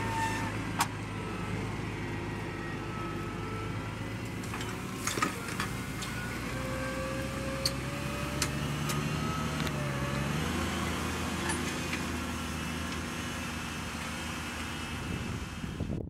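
New Holland T7 270 tractor's diesel engine running steadily under load while pulling a reversible plough through stubble. The engine note steps up in pitch about ten seconds in, and a handful of sharp clicks sound over it.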